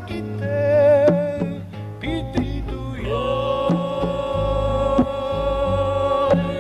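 Music: a sung melody over hand drums and a low bass, the voice wavering at first and then holding one long note for about three seconds near the end.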